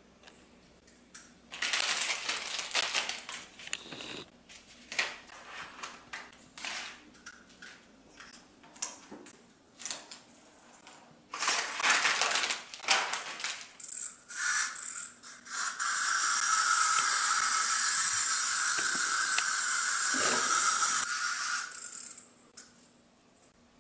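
Plastic toys and candy wrappers rattling and crinkling as they are handled, then a small pumpkin wind-up toy's clockwork motor buzzes steadily for about five seconds and stops near the end.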